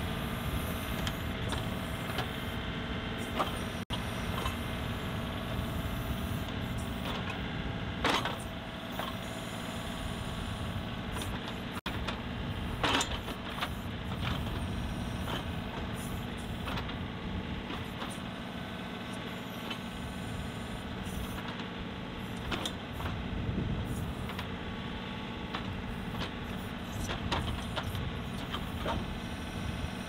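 John Deere 2038R compact tractor's three-cylinder diesel engine running steadily under hydraulic load while the backhoe's boom and bucket push against the ground to walk the tractor forward. Sharp clunks come about eight and thirteen seconds in.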